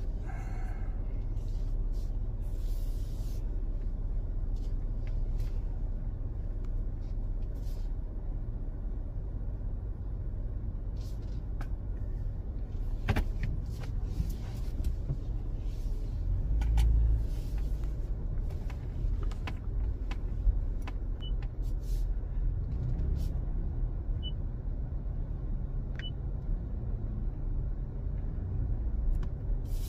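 Low, steady rumble of a car running and rolling slowly, heard from inside the cabin. The rumble swells briefly about halfway through, and there are a few faint clicks.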